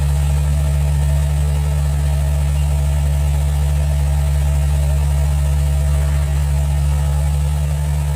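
Excavator engine running steadily at constant speed, a low, even drone with no revving or pauses.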